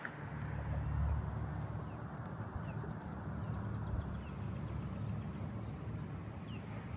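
Wind buffeting the microphone as a steady low rumble, with a few faint short chirps from birds.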